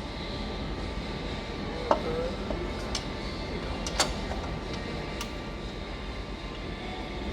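Four sharp metallic clicks and taps, spread about a second apart, from hand tools and parts being handled under the bonnet while the drive belt goes back on. Steady background noise runs underneath.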